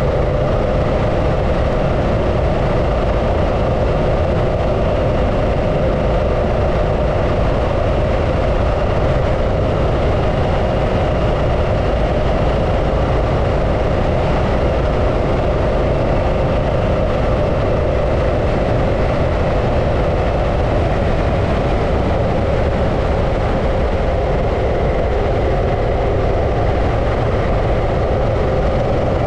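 Harley-Davidson Pan America's Revolution Max 1250 V-twin running at a steady pace while the bike is ridden, under a heavy, even low rumble of riding noise.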